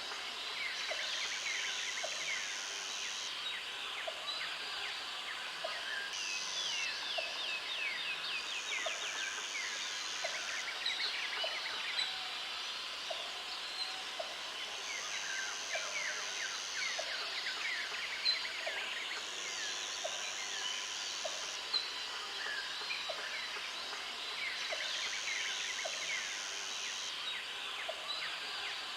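Natural outdoor ambience: a dense chorus of birds chirping and trilling, with a high steady buzz that comes and goes in stretches of about two seconds and faint soft ticks about once a second.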